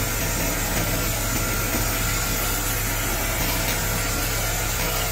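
Continuous fiber laser cleaner ablating rust and grime off a cast-iron engine block: a steady hissing noise over a low machine hum.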